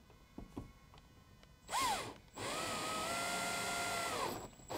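Cordless drill-driver running on a bolt. A short whir rises and falls, then the drill runs steadily for about two seconds and winds down.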